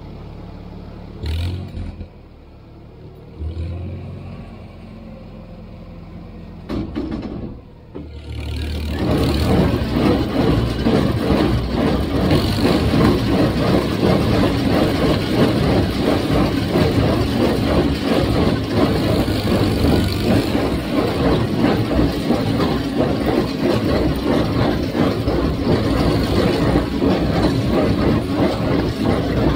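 Tractor engine running low for the first several seconds, with a couple of knocks. About eight seconds in, a much louder, steady, rough mechanical running starts and carries on.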